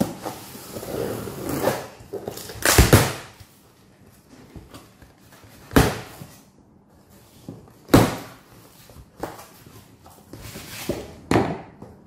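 A cardboard shipping box being opened: a knife slitting the packing tape, then the flaps pulled up with scraping cardboard rustles and several sharp thumps, the loudest about three seconds in and a few more around six and eight seconds in.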